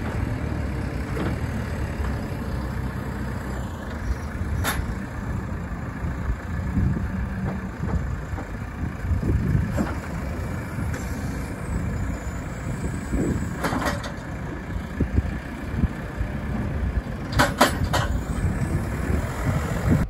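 JCB telehandler's diesel engine running steadily as its boom places a big square straw bale on top of a stack, with a few sharp knocks about five seconds in, around fourteen seconds, and twice near the end.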